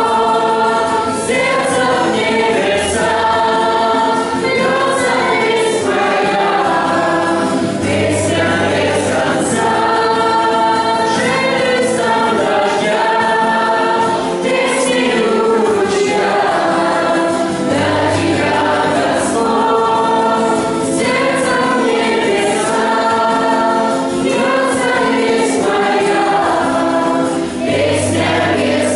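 A group of children and adults singing a Christian worship song together, accompanied by a strummed acoustic guitar.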